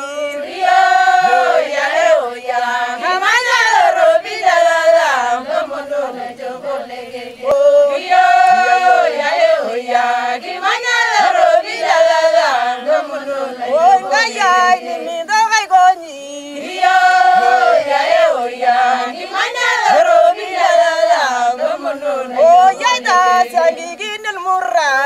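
A group of Ilchamus women singing together unaccompanied, a repeated chant-like song in phrases with brief pauses between them.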